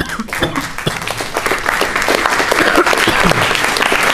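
Audience applauding the end of a poem: dense clapping that builds slightly and then holds steady.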